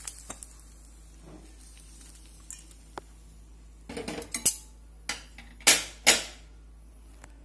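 Metal utensils clinking against a stainless steel bowl: a few faint ticks at the start, a cluster of sharp clinks about four seconds in, then three louder single strikes over the next two seconds.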